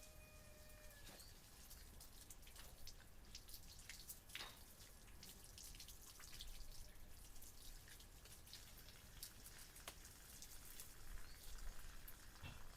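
Faint, irregular clicks and ticks over a low background hum, with a brief steady pitched tone in the first second.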